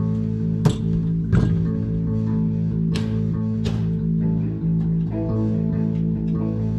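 Guitar music with bass playing steadily, with four sharp knocks over it in the first four seconds.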